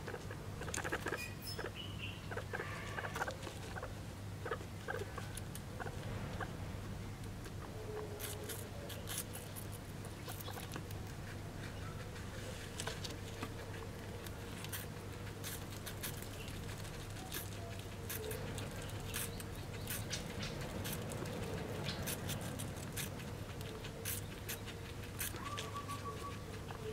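Guinea pig chewing close up, first on cucumber and then on corn leaves: irregular wet crunching and nibbling clicks, over a steady low hum.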